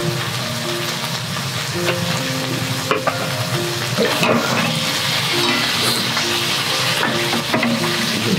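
Offal and bean sprouts sizzling as they fry in a cast-iron skillet on a wood stove, with a few light clicks of chopsticks against the pan. Soft background music plays underneath.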